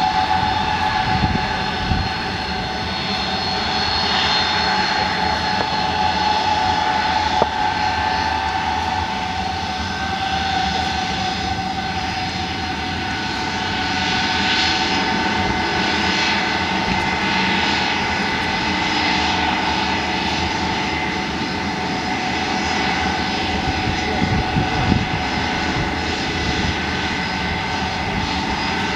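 Xian Y-20 transport's four turbofan engines running at taxi power, a steady high whine of several tones over a low rumble.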